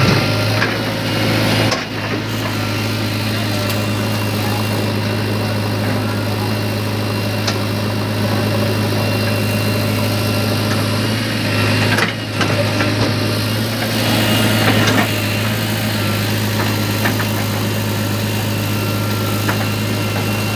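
JCB 3DX backhoe loader's diesel engine running steadily while the backhoe digs and dumps soil, with a brief break about two seconds in and again about twelve seconds in.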